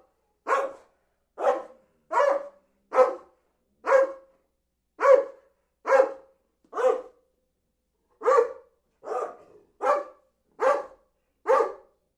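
A dog barking in single, evenly spaced barks, about one a second, a dozen or so in all, with a brief pause about halfway through.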